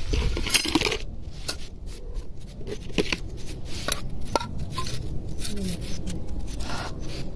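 A metal spoon scraping and clinking against an open tin can as food is scooped out: a run of short, irregular clicks and scrapes.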